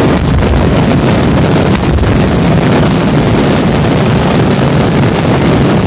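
Fireworks finale barrage: aerial shells and salutes bursting so densely that the bangs run together into one loud, unbroken din.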